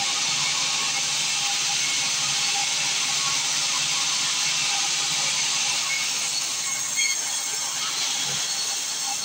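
A sawmill saw running with a steady, even hiss, without a break in its pace.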